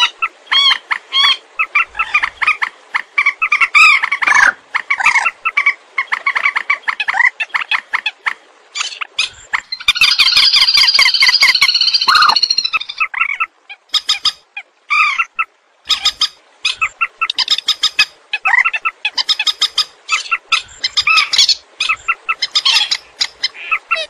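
Swamphen (trích ré) calls from a bird-trapping lure recording: rapid runs of short calls, with one longer unbroken call about ten seconds in.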